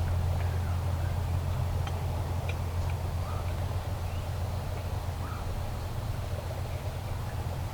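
A few faint, short calls from wild turkey hens close to the blind, over a steady low hum.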